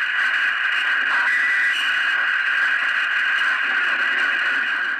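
Speaker of a home-built amateur HF receiver, on an antenna and tuned around 7.2 MHz, putting out badly garbled audio: a steady rush of noise with no intelligible signal. The receiver cannot receive because strong AM and FM broadcast signals on the antenna overload its unfiltered RF preamplifier.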